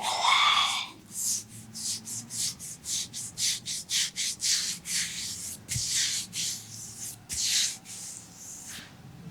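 Hands massaging an oiled leg, rubbing skin in quick repeated strokes about three a second. It opens with a louder, fuller swish.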